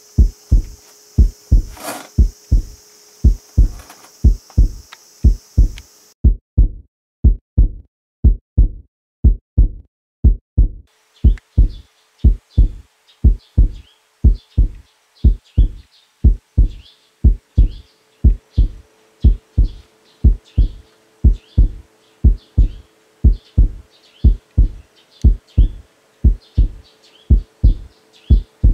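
Heartbeat sound effect: a steady lub-dub of low thumps in pairs, laid on as suspense music. There is a high hiss for the first few seconds, and faint high chirps from about a third of the way in.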